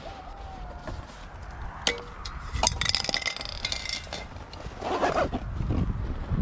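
Aerosol spray paint cans knocking and clinking against each other as they are packed into a backpack, loudest about three seconds in, with the bag rustling and scraping.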